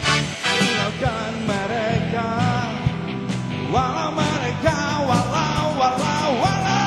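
Live rock band playing: a drum kit keeping a steady beat under electric guitars, with a wavering, held melody line on top.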